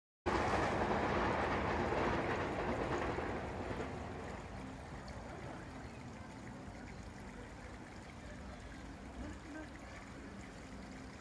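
Outdoor background noise: a rushing noise starts suddenly, fades over the first four seconds, then settles to a steady, lower hiss.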